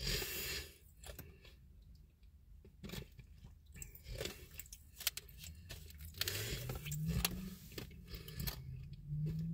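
A person chewing and crunching a mouthful close to the microphone, in irregular crunches and clicks, with a couple of short low hums near the end.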